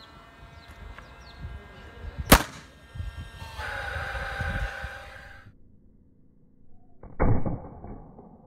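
Nail gun firing a 90 mm nail into a board from a few centimetres away: one sharp, loud crack about two seconds in. A rough noise follows for about two seconds, and a duller thud comes near the end.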